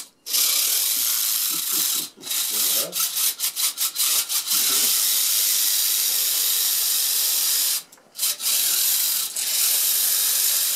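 Electric drive motors and metal Meccano gear trains of a radio-controlled rock crawler running, a steady high whirr. It stops and restarts several times, with short breaks about two seconds in, a cluster of quick stops around three to four seconds, and another break about eight seconds in.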